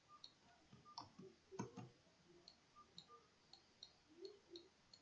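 Faint, irregular computer mouse clicks over near silence, about a dozen short ticks spaced unevenly, a few with a soft knock.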